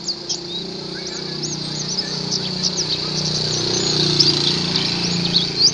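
White-eye (pleci) song: a rapid, continuous run of high, thin chirps and quick slurred whistles. A low hum sits underneath.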